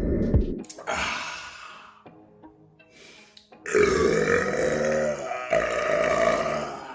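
A man burping loudly: a shorter burp at the start, then a long drawn-out burp of about three seconds from about halfway through.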